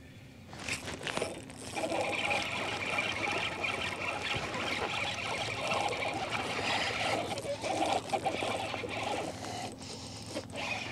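A baitcasting reel being cranked fast, with water splashing, as a hooked bass is fought toward the kayak; the sound starts suddenly about a second in and runs on steadily, easing briefly near the end.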